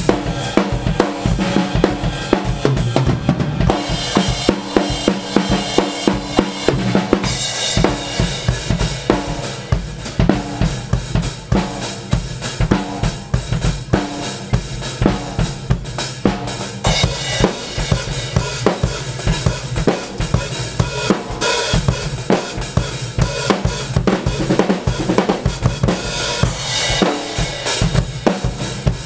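Two drum kits played together in a fast drum shed: a dense stream of snare and bass drum hits with crash cymbals and hi-hat, running without a break.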